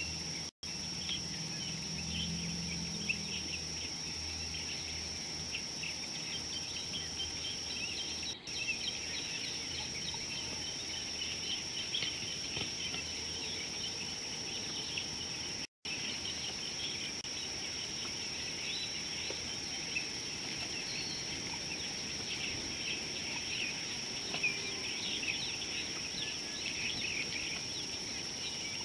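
Dry-savanna ambience: a steady high-pitched insect drone with many short bird chirps and calls throughout, and a low hum for a couple of seconds near the start. The sound drops out completely three times for an instant.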